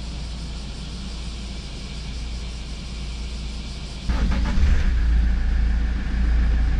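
Toyota HiAce's diesel engine, started by push button, running at idle with a steady low rumble heard from the cab. It comes in suddenly about four seconds in, after a quieter low hum.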